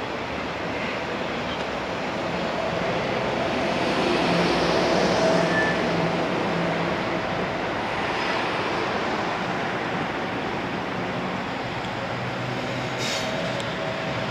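JR Freight EF210 electric locomotive hauling a container freight train as it approaches: a steady running noise from the train on the rails, with faint steady tones, swelling a little about four seconds in.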